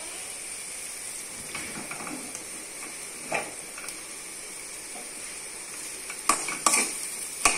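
Potato masala frying with a steady sizzle in a metal kadai while a steel spoon stirs it, with a few light scrapes and then a run of spoon clatters against the pan near the end.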